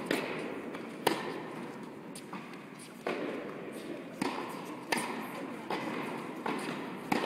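Tennis balls struck by racket strings and bouncing on the court in a rally, about five sharp pops spaced one to two seconds apart, each echoing in the large indoor hall.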